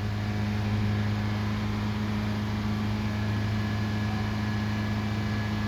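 2020 Nissan Rogue's four-cylinder engine held steadily at raised revs, a constant even hum, during a charging-system test.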